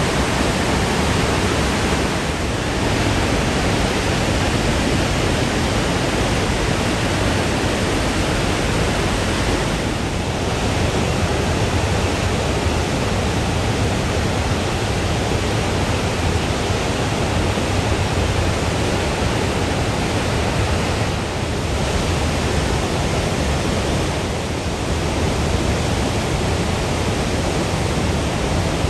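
The Rhine Falls: a great volume of river water pouring over the rocky falls, a loud, steady rush of noise.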